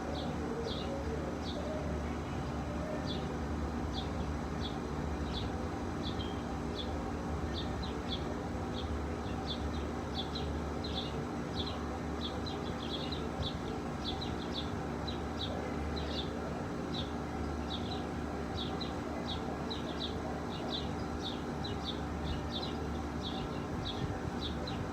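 A bird chirping over and over, short chirps about twice a second, over a steady low background hum.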